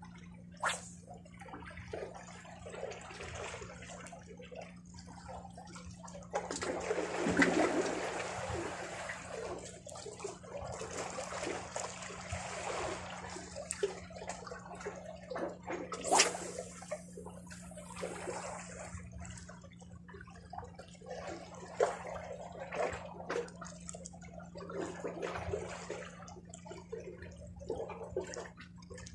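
Small sea waves lapping and sloshing against rocks at the waterline, in irregular surges, the biggest about seven seconds in, with a few sharp splashes, the loudest about sixteen seconds in.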